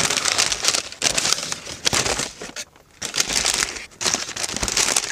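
White paper bakery bag crinkling and rustling as a pie is unwrapped from it by hand. The rustling comes in spells, with short pauses about halfway through and again about four seconds in.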